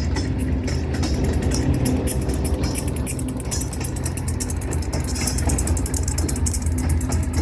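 An engine running steadily with a low hum, with fine rapid ticking above it.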